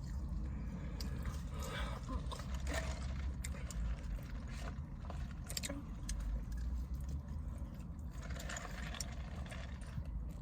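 Low steady rumble inside a parked car, with scattered small clicks and rustles of things being handled.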